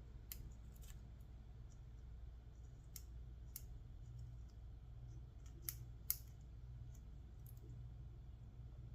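Faint, scattered clicks of a lock pick and tension wrench working the pins of a Federal 200A aluminum padlock held in the hand, with two slightly louder clicks about six seconds in.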